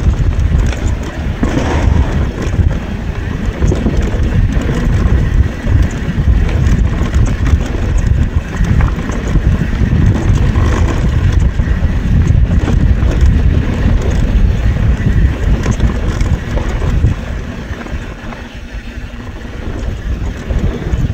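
Wind rushing over an action camera's microphone, with tyre roar and the knocking and rattling of a YT Tues CF Pro downhill mountain bike descending a rough dirt trail. The noise eases off a little near the end.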